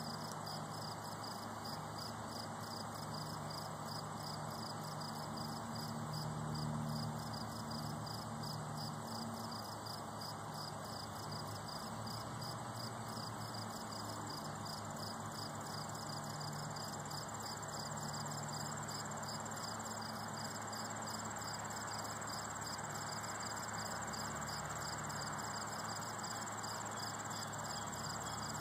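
Crickets chirping steadily, about two high chirps a second, over a fainter continuous high-pitched insect trill.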